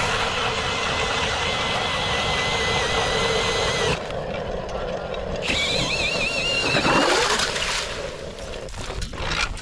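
A motor running loudly with a wavering whine, its pitch dropping away about seven seconds in.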